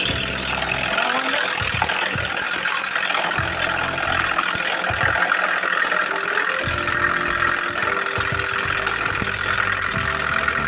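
Electric hand mixer running at a steady speed, beating egg whites toward stiff peaks.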